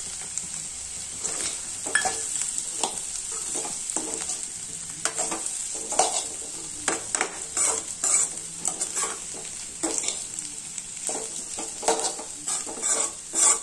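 Baby potatoes sizzling in oil in a metal pan while a metal spatula stirs them, scraping and knocking against the pan over and over at an uneven pace.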